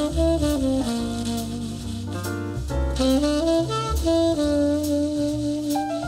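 Jazz recording played back through Advent Laureate loudspeakers: a saxophone plays the melody over bass and drums with cymbal strokes, holding one long note near the end.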